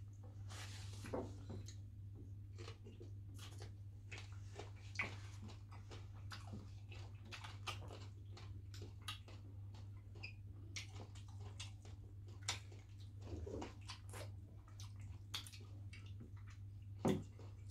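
Faint close-mic eating sounds: wet chewing, lip smacks and fingers squishing through soupy fish and starch, heard as scattered short clicks and smacks over a steady low hum.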